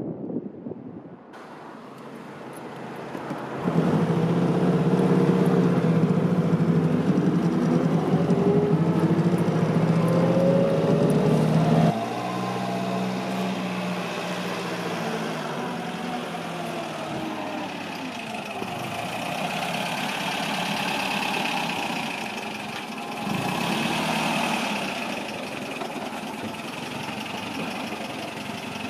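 A 1947 Alvis TA-14's four-cylinder engine running while the car is driven, its pitch rising and falling with the revs. About twelve seconds in it drops abruptly to a quieter, steadier running sound, with a brief swell about two thirds of the way through.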